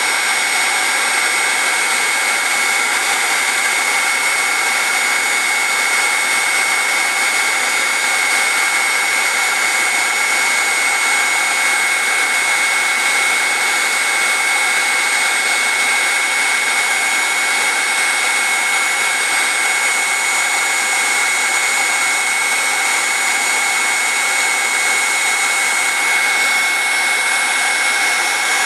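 Electric heat gun running steadily, blowing hot air onto PEX-A pipe to heat it: an even rush of air with a steady high whine.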